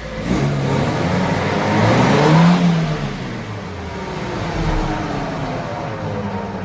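Daewoo Nexia engine revving up in gear with the front left wheel jacked up and spinning, rising in pitch to its loudest about two and a half seconds in. Then the revs drop and a hum slowly falls in pitch as the free wheel coasts down. The hum comes from a worn front left hub bearing, judged to need replacing.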